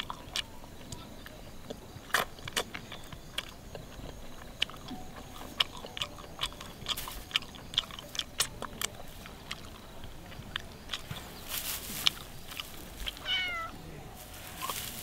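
Close-up eating sounds from someone eating grilled chicken wings: wet chewing, lip smacks and finger-licking clicks, with sips from a bottle near the end. A short falling, cat-like call sounds once, about thirteen seconds in.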